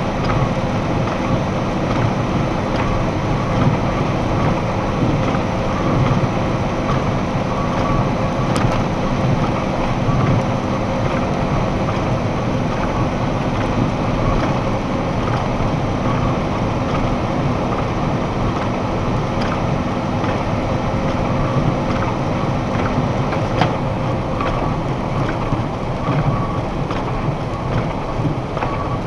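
Steady road and engine noise inside a box truck's cab at highway speed, about 66–68 mph. A faint steady hum under it stops about three-quarters of the way through.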